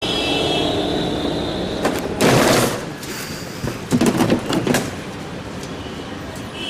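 Car horns honking from street traffic for the first couple of seconds. Then a loud rough burst of noise about two seconds in, and a cluster of sharp knocks and bursts about four seconds in.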